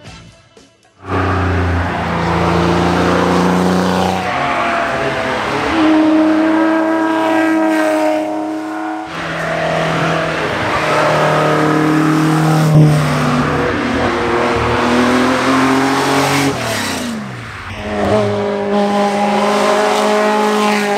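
Hill-climb racing car engine at full throttle, pulling up through the gears. It starts abruptly about a second in, its pitch climbing and dropping at each upshift, with a falling sweep as a car passes about three-quarters of the way through.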